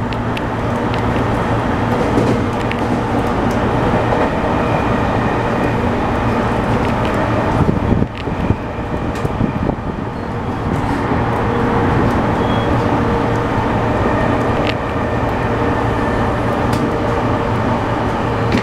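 JR East E231 suburban-type electric train pulling away from a station, heard inside the passenger car: steady whine from the inverter and traction motors over wheel-on-rail rumble, with a few sharp clicks from the wheels over the rails.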